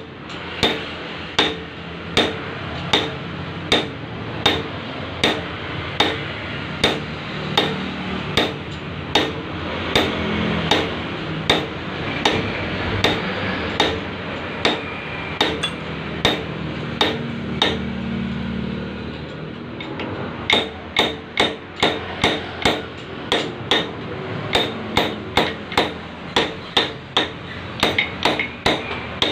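Hammer striking metal in a steady run of sharp taps, working a ball bearing along a steel shaft mounted in a lathe. The blows come about every second at first, thin out for a few seconds past the middle, then come faster, two or three a second, near the end.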